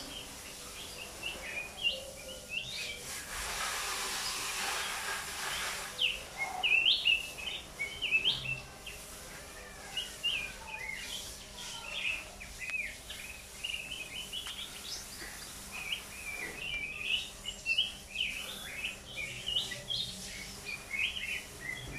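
Caged yellow songbird singing a steady run of quick, high chirps and short trills. A hissing noise rises and fades a few seconds in.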